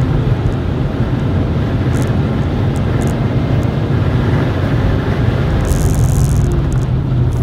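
Cabin noise inside a supercharged Lexus IS200 driving at speed: the straight-six engine runs steadily as a low drone under road and wind noise, with a short high hiss about six seconds in.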